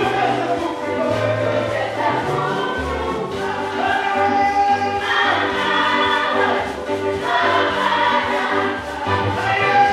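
Gospel worship song sung in chorus by a group of singers into microphones, amplified through the hall, with a bass line moving underneath.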